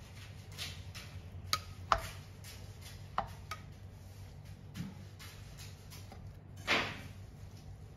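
Metal spatula and rice paddle knocking and scraping against an iron wok while folding heavy, sticky glutinous rice: scattered clinks, with a longer, louder scrape near the end. A low steady hum runs underneath.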